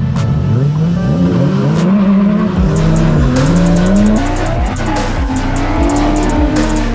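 Drift-car engines revving hard up and down as the cars launch into a slide, with tyres squealing, over music with a steady beat that comes in about two and a half seconds in.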